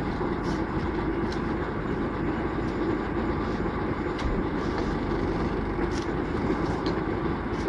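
Well-drilling rig's engine running steadily, with a few faint clicks over it.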